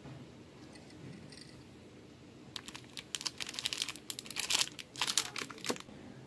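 Plastic wrapper of an Oreo cookie pack crinkling as it is handled, a run of crackles starting about two and a half seconds in and lasting about three seconds.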